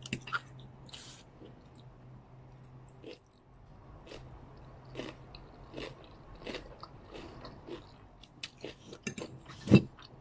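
Close-up chewing of stir-fried egg noodles with crunchy vegetables: irregular wet smacks and crunches. A single louder thump comes near the end.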